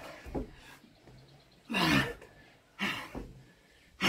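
A man breathing hard from the exertion of non-stop burpees: short gasping breaths and a loud groaning exhale, falling in pitch, about two seconds in. A sharp knock comes right at the end.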